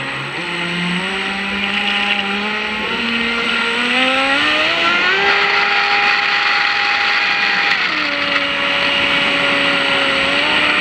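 The 2075kV brushless motor of an RC offshore twin-hull boat whining as the throttle changes. Its pitch climbs in steps over the first five seconds and holds high, drops about eight seconds in, then starts climbing again near the end, over a steady hiss.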